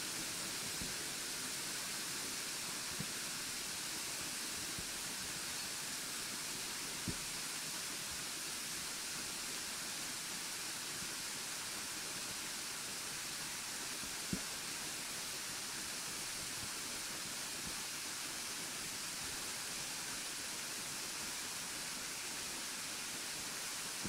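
Steady rush of the Burgbach waterfall, a tall cascade falling onto rocks, heard as an even hiss, with three faint clicks.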